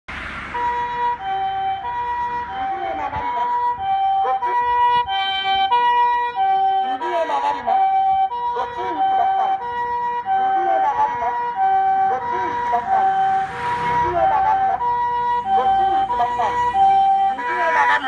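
Japanese ambulance harmonic siren sounding the two-tone 'pee-po', alternating a high and a low note about once a second each. Each note is a rich tone with several overtones, over the noise of the vehicle.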